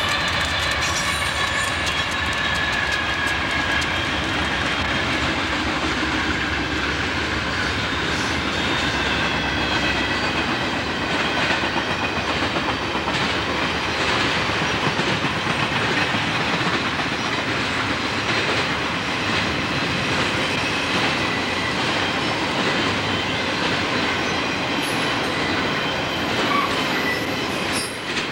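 Conrail diesel freight train passing close by: locomotives working under load with a high whine that slowly falls in pitch and fades over the first several seconds, then flatcars loaded with highway trailers rolling past with a steady rumble and wheels clicking over rail joints.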